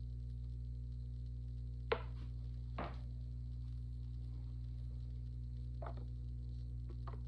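Over a steady low hum, a few handling sounds of clay work at a pottery wheel: a sharp click about two seconds in, a duller knock just under a second later, and faint taps near the end.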